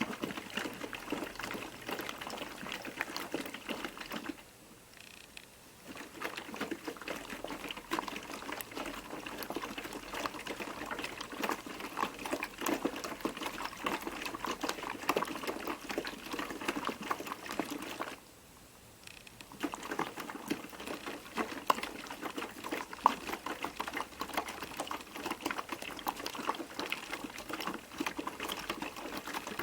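Piko WS5522 washing machine in its rinse, the drum turning the wash through the rinse water with a steady churning and sloshing. Twice it stops for about a second and a half before starting again.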